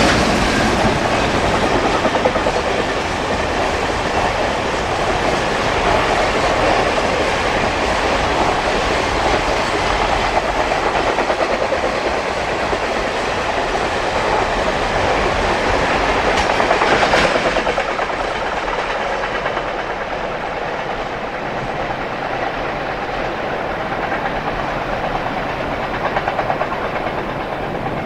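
A JR Freight high-speed container train of Koki flatcars running past, a steady rumble with a rapid clatter of wheels over the rail joints. The sound swells briefly about two-thirds of the way through and eases a little near the end.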